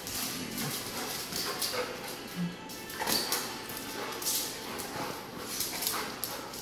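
A dog's claws clicking and scrabbling on a tile floor as it darts and pounces after a laser dot, with a brief whimper about two and a half seconds in.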